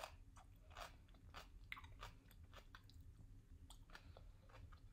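Faint close-up chewing of a mouthful of tuna triangle kimbap, with small irregular crunches from the seaweed wrapper, strongest in the first second or so.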